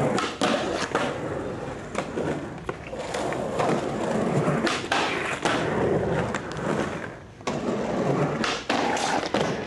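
Skateboard rolling over rough concrete, a steady gritty wheel rumble broken by a series of sharp clacks from the board every second or so.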